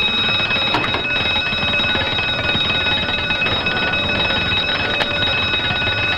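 Electric alarm bell ringing continuously and loudly, the fire station's call-out alarm sounding.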